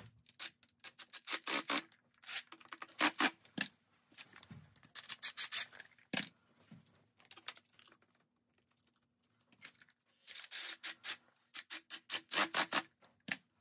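Irregular scraping, rubbing and clicking of hands working poly pipe and its fittings, as a barbed male insert adapter is pushed into the torch-softened pipe and clamps are fitted, with a faint steady hum underneath.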